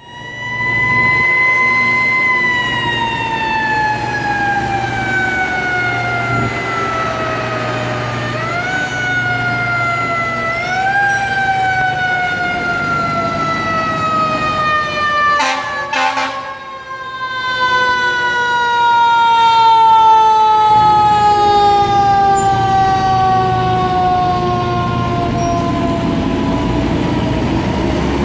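Fire engine siren on an emergency run: one long, slowly falling wail, spun quickly back up twice about a third of the way in, then falling steadily again.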